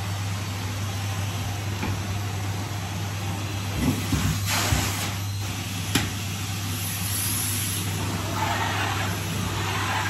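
Numatic Henry cylinder vacuum cleaner running steadily with a constant motor hum, with a few knocks and a brief louder rush of air around four to six seconds in.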